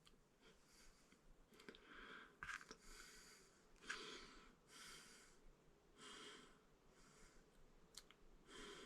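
Near silence: faint breaths about once a second, with a few small clicks.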